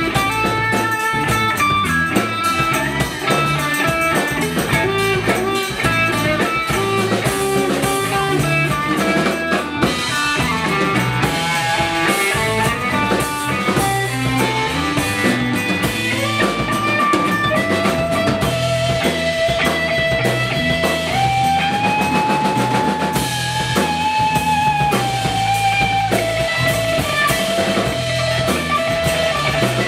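Rock band playing an instrumental passage: electric guitar over bass guitar and drum kit, the guitar holding a few long notes in the second half.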